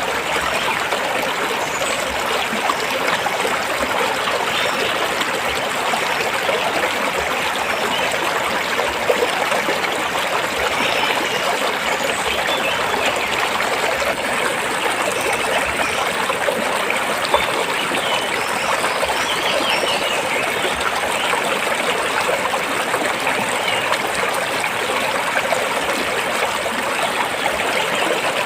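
A stream of water flowing and trickling over rocks: a steady, even rush of running water.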